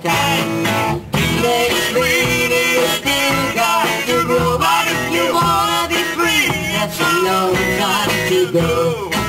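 Live band with electric guitars playing an upbeat dance number, an instrumental stretch with the guitar to the fore over a steady beat.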